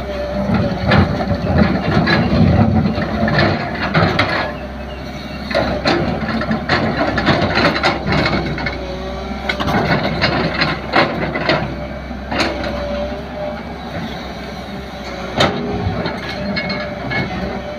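JCB 3DX backhoe loader's diesel engine running under load, with a steady low hum and repeated metallic knocks and clanks from the digging bucket and arm.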